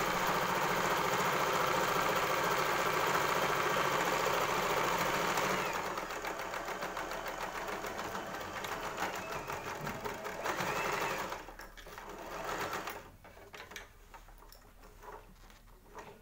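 Usha Allure DLX sewing machine stitching through denim. It runs steadily at speed for about six seconds, then more quietly, with a short last spurt before it stops. Light clicks follow as the fabric is handled.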